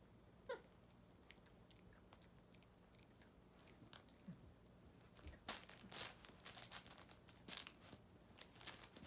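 Puppy chewing and tugging at a plush toy: soft crunching, crinkling and rustling, faint at first and busier from about halfway.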